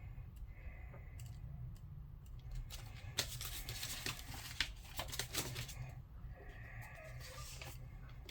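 Handling noise: scattered clicks and light rustling, with a busier stretch of rustling and scraping in the middle as hands work with a small plastic camera and its packaging.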